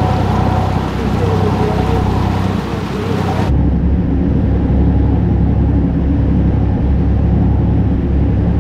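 A passenger boat's engine running steadily, with the propeller wash churning the water at the stern. About three and a half seconds in the sound changes abruptly to a duller, steady low engine drone heard on board, with the hiss of the water gone.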